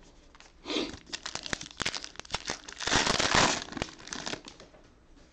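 Wrapper of a 2020 Panini Elite Extra Edition baseball card pack crinkling and tearing as it is ripped open, with the densest, loudest crinkling about three seconds in.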